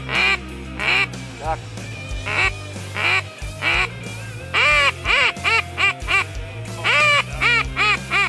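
Loud duck quacks, some single and some in quick runs of four or five that get shorter toward the end of each run, over background music.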